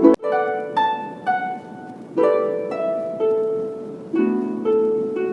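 Background music: a gentle melody of plucked, harp-like notes, each struck note fading away before the next. A brief click with a momentary dropout right at the start.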